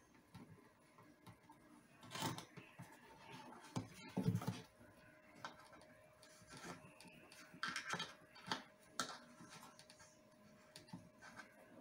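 Scattered light knocks, clicks and rustles of hand work at a repair bench, louder about two seconds in, about four seconds in and in a cluster near eight to nine seconds, with a faint steady hum from about four seconds in.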